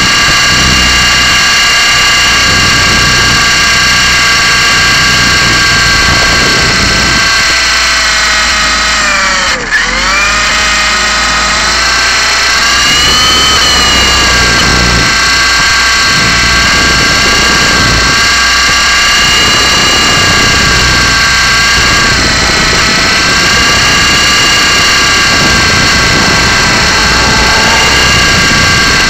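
Blade 120SR micro RC helicopter's electric motors and rotor whining steadily at a high pitch. About ten seconds in, the whine drops sharply in pitch and then climbs back, and it wavers a little again later on.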